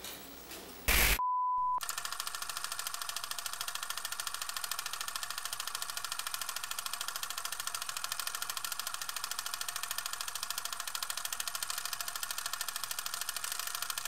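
A short burst of static and a brief single beep about a second in, then the steady, rapid clatter of a film projector running.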